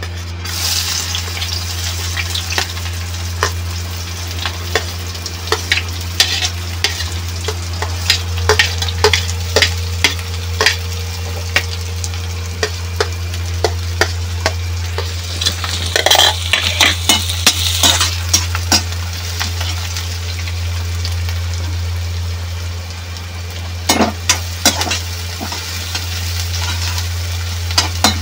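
Chopped onions sizzling as they fry in hot oil, the hiss starting just as they go into the pan. A spatula stirs them with frequent sharp scrapes and taps against the pan, busiest a little past halfway and again near the end, over a steady low hum.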